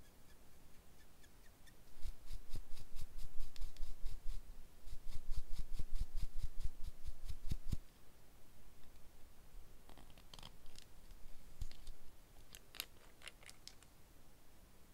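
Long extended nails clicking and tapping against a gel bottle for several seconds as it is handled, with dull thumps mixed in. Sparser clicks follow as the brush cap is twisted open.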